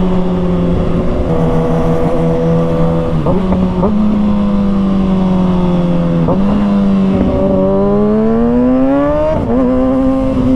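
Kawasaki ZX-6R inline-four engine running under way, heard from the rider's helmet. Its pitch breaks and changes twice, about three and six seconds in, then climbs steadily as the bike accelerates and eases off near the end.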